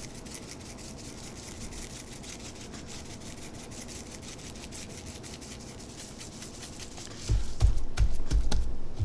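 A gloved hand rubs dry seasoning into a raw skirt steak on a wooden cutting board, with seasoning grains shaken from a plastic shaker, making a soft steady scratchy rubbing. A little over seven seconds in, a run of loud, dull thumps follows as the hand pats and presses the meat down against the board.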